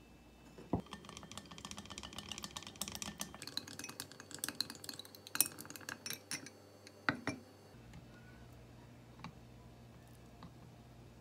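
A utensil beating egg whites in a glass bowl: fast, continuous clinking and tapping against the glass from about a second in until about three-quarters of the way through, with a few louder knocks near the end.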